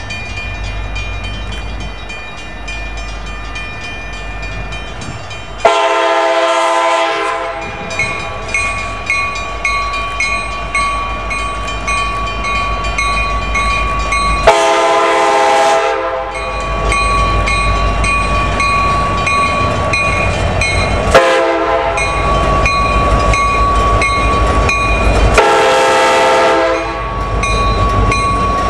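Kansas City Southern diesel locomotive's air horn sounding the grade-crossing signal, long, long, short, long, over the steady rumble of the approaching locomotives' engines.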